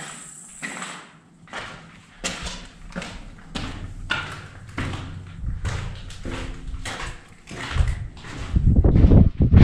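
Footsteps on a gravel and rubble floor in a concrete tunnel, at an even walking pace of a little over one step a second. Near the end, wind starts buffeting the microphone and becomes the loudest sound.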